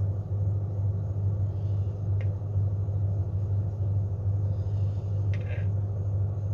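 A steady low hum, with two faint light clicks about two and five seconds in as a glass swing-top jar of thick sourdough starter is tipped to pour into a plastic bowl.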